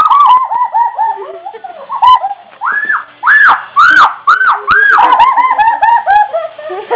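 Girls laughing in rapid, high-pitched hoots, about four or five a second, that sound like a monkey; a second laugh overlaps near the middle.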